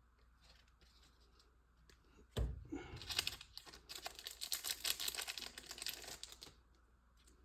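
A thump about two seconds in, then about four seconds of crinkling and tearing as a sealed trading card pack's wrapper is torn open, stopping abruptly.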